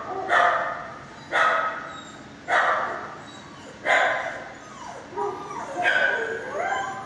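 A shelter dog barking in an echoing kennel block: four single barks about a second apart, then whining yelps that slide up in pitch near the end.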